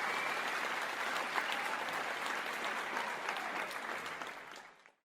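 Crowd applause, many hands clapping in a dense, even spread, slowly thinning and then fading out quickly in the last half second.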